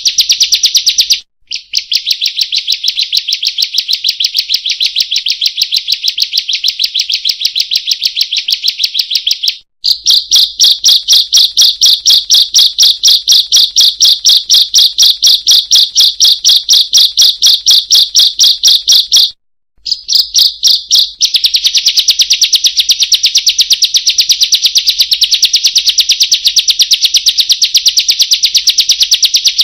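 Ciblek (prinia) song: a loud, fast, unbroken string of sharp high chirps, several a second, stopping briefly three times: about a second in, near a third of the way, and near two-thirds of the way.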